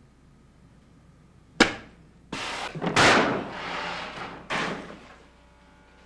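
A sharp bang, then a few seconds of loud, noisy crashing and rushing with a second hit near the end.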